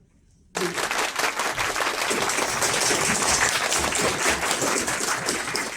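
Audience applauding, starting suddenly about half a second in and stopping abruptly near the end.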